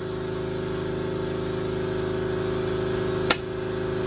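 Piston air compressor running with a steady low hum, slowly growing louder, as it builds pressure back up after the die grinder has drawn air. A single sharp knock about three seconds in.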